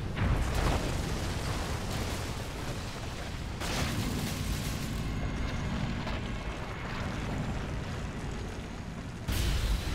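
Film sound design of a planet breaking apart: a continuous deep rumble. Louder blasts swell up just after the start, near four seconds in, and again near the end.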